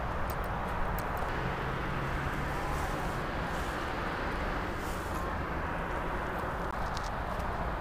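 Footsteps and the rustle of grass and a mesh fish trap being carried along a grassy bank, with faint light ticks over a steady outdoor background noise.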